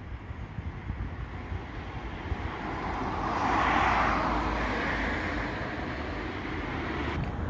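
A passing vehicle, its noise swelling to a peak about four seconds in and then slowly fading, over a steady low rumble.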